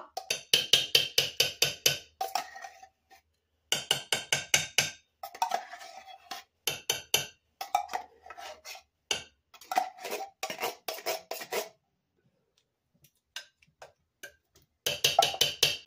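Hand-crank can opener cutting around the lid of a metal soup can, clicking rapidly in spurts of one to two seconds as the handle is turned, with short pauses between turns and a longer pause near the end.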